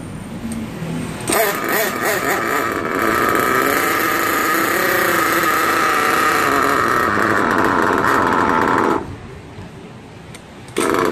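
Small nitro glow engine of an RC buggy running at high, buzzing revs while its carburetor needle is being adjusted. The pitch wavers for the first couple of seconds, then holds steady. The engine cuts off suddenly about nine seconds in, and a short burst of running comes back just before the end.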